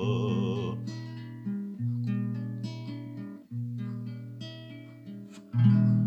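An acoustic guitar plays the closing chords of a song, with fresh chords struck about every two seconds and each one left to ring and fade. A sung held note with vibrato ends about a second in.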